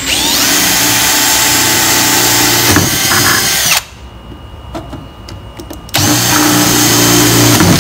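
Cordless drill boring a quarter-inch hole through a fiberglass footwell and the controller's mounting flange. It spins steadily for about four seconds, stops, and starts a second run about two seconds later.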